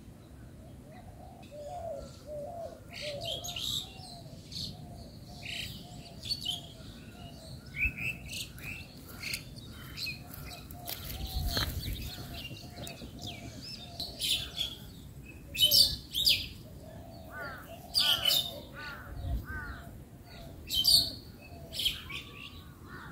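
Several wild birds chirping and calling. A run of short, quickly repeated notes comes early and again midway, and a few loud, sharp calls stand out in the second half.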